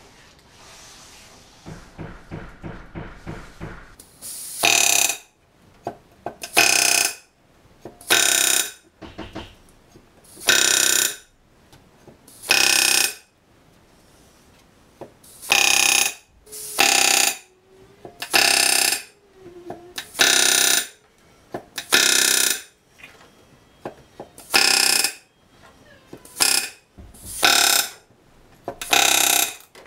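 Pneumatic rivet gun back-riveting solid rivets through the stiffeners and aluminium skin of an RV-7 elevator. Each rivet gets one short, loud rattling burst, and about fourteen follow one another every second and a half to two seconds.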